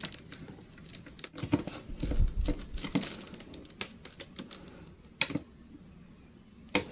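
Irregular small clicks and scrapes of a screwdriver turning the screws of a switching power supply's terminal block as wires are fed in and held. They are busiest in the first half, with a sharper click about five seconds in.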